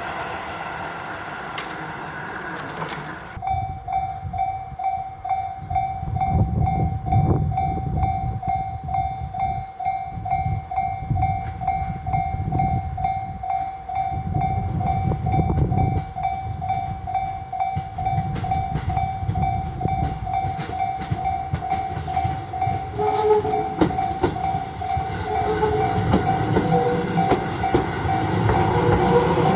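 Japanese level-crossing warning bell ringing in steady rapid pulses while a Tobu 20400 series electric train rumbles past, its wheels clattering over the rail joints. The sound changes abruptly about three seconds in, from a different crossing's bell to this one.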